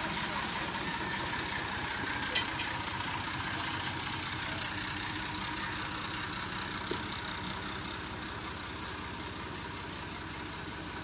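Massey Ferguson 260 Turbo tractor's three-cylinder diesel engine running steadily at low revs as the tractor moves off, with a brief clink about two seconds in, the engine growing a little fainter near the end.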